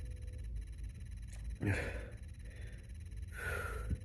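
A man breathing hard against the burn of a Carolina Reaper–seasoned chip: a loud breath about a second and a half in, then a hissing breath near the end.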